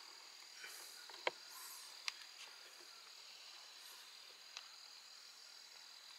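Quiet, steady high-pitched drone of forest insects such as crickets, with three sharp clicks about one, two and four and a half seconds in, the first the loudest.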